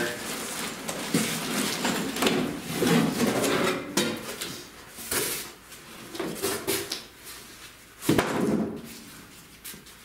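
A large cardboard box cover scraping and rubbing as it is slid up and lifted off a boxed sheet-metal furnace, with packaging rustling and handled. Near the end comes one sharp knock, the loudest sound.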